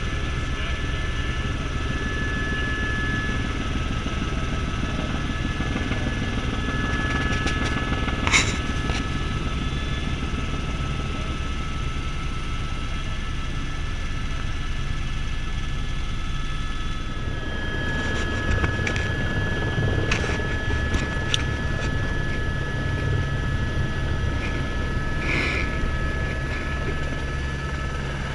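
Helicopter turbine and rotor noise heard from inside the cabin: a steady low rumble under a constant high turbine whine. The low rumble shifts about two-thirds of the way through, and a few sharp knocks come through, the loudest about eight seconds in.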